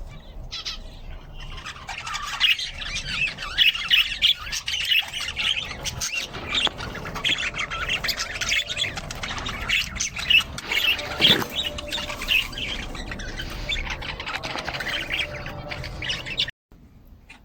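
Many small caged birds chirping and squawking together, a dense chatter of short high calls that builds about two seconds in and cuts off abruptly near the end.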